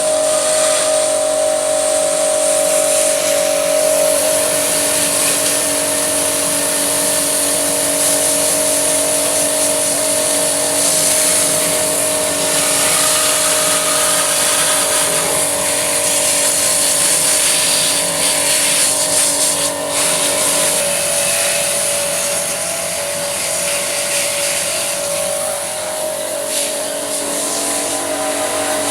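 A high-pressure jet washer of the kind used to wash air conditioners, running steadily. Its motor gives a steady whine under a loud hiss of spraying water, with a slight change in pitch and level about two-thirds of the way through.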